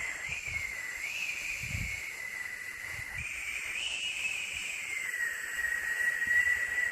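Steady white-noise hiss with a whistling band in it that slowly wavers up and down in pitch.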